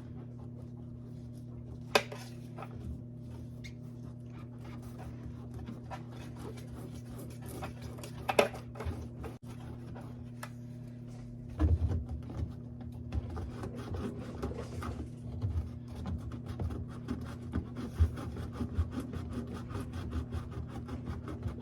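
Rubbing and scraping on a rubber washing machine door gasket, over a steady low hum. There are a few scattered scrapes at first, then a busy run of quick strokes from about halfway in.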